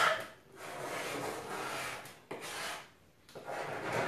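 Painted wooden tabletop being scraped by hand in three long strokes with short pauses between them. The paint is being scraped back, not sanded, to give a worn demolition-style patina.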